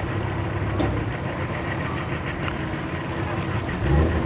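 Engines idling steadily with a low hum, swelling briefly louder about four seconds in.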